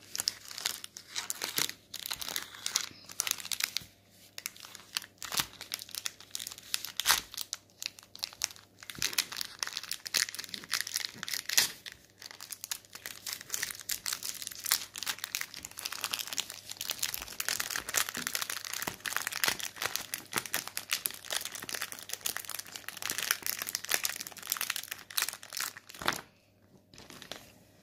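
The metallised plastic wrapper of a Twix Xtra bar crinkles and crackles densely as it is handled and torn open, and the bars are pulled out. The crackling stops abruptly near the end.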